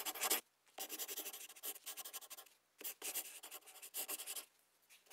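Scratchy strokes of writing on paper, fairly faint, in three runs with short pauses between them.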